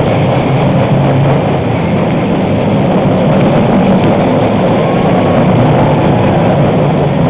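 Roller coaster train running along its track, a loud, steady rumble heard from on board the moving car.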